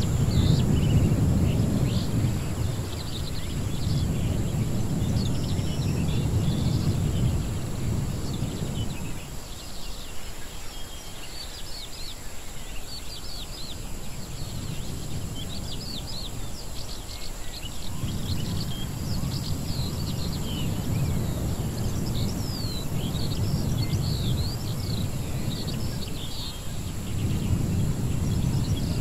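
Edited jungle-ruins ambience: a low rumble that swells and fades in long waves, strong at first, dropping away about a third of the way in and building again past the middle. Many birds chirp high above it, over a steady high hiss.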